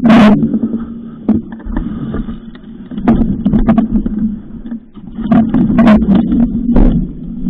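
A mountain bike on a rough dirt trail: a steady low rumble broken by frequent knocks and rattles as it jolts over the ground. The hardest knock comes right at the start.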